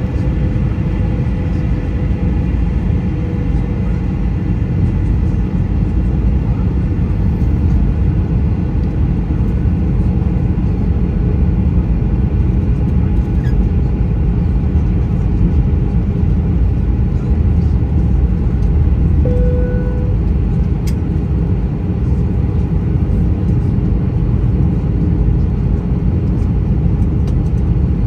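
Steady cabin noise inside an Airbus A321-231 airliner on approach: a constant low rumble of its IAE V2500 engines and airflow past the fuselage. A brief tone sounds about two-thirds of the way through.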